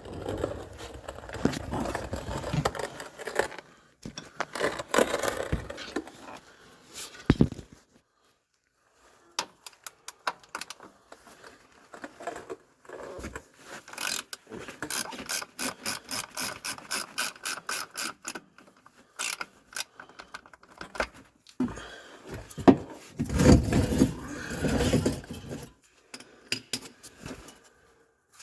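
Socket ratchet clicking in a quick, even run, about four or five clicks a second, as a bolt is turned under the truck, among scattered knocks and tool handling.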